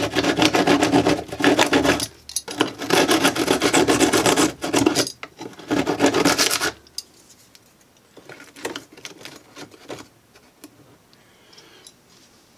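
Keyhole saw blade scraping and rasping at the model mountain's scenery shell in three long bouts of quick strokes, clearing away a leftover piece. It stops about seven seconds in, followed by a few faint handling taps.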